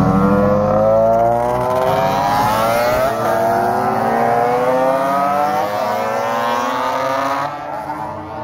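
Motorcycle engines accelerating hard past, two bikes one after the other: the engine pitch climbs steadily, drops back about three seconds in as the next one comes through and climbs again, then fades near the end.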